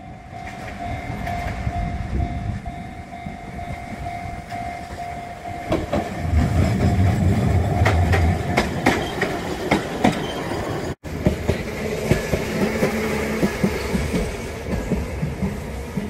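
Kagoshima City tram approaching and passing over a level crossing: a level-crossing warning signal rings steadily at first, then the tram's low rumble and the clicks of its wheels over the rail joints grow loud as it goes by. After a sudden cut, another tram runs along the line with a steady clickety-clack of wheels over rail joints.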